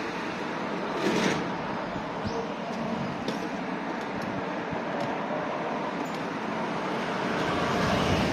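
Steady outdoor noise of road traffic, a low even rush of passing vehicles that swells slightly near the end.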